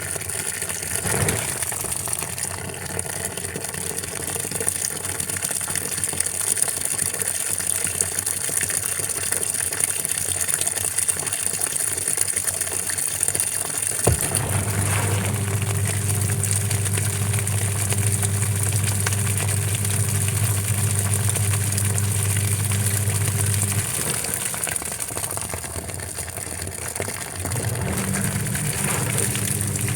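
Washing machine running with water noise; about halfway a motor or pump switches on with a click and hums steadily, stops for a few seconds, then starts again near the end.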